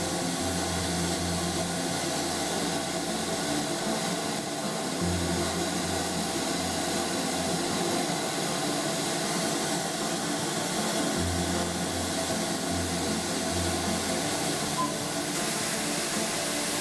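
Steady hiss of steam escaping from a standing steam locomotive, with low humming tones that come and go underneath.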